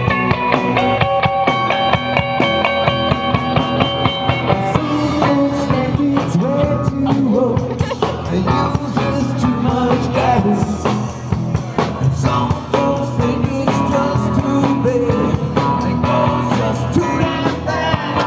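Live rock band playing a cover song: distorted electric guitars and a drum kit, with a man singing.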